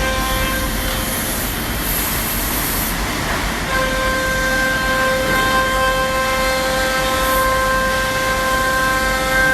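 CNC router spindle running with a steady multi-tone whine over the noise of a bit cutting plywood. The whine fades out about half a second in and comes back strongly near four seconds.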